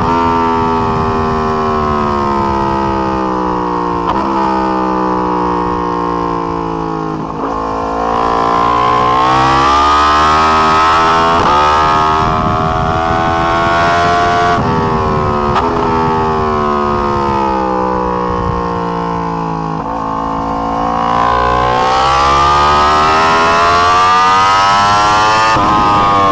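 Yamaha R1 crossplane inline-four engine at track speed, heard from on board: its pitch falls for several seconds, then climbs steeply, twice over, with short sharp breaks at the gear changes.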